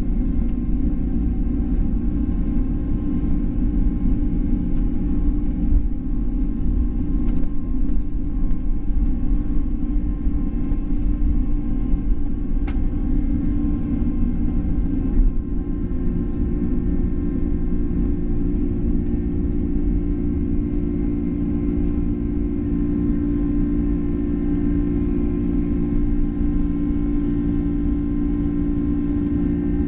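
Boeing 767 jet engines at takeoff power heard from inside the cabin, over the rumble of the takeoff roll. About halfway through the airliner lifts off: the level dips briefly and the rumble gives way to a steadier engine hum in the climb.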